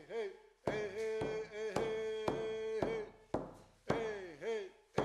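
Singing in long held notes with sliding pitch over a steady drumbeat of a little under two strokes a second.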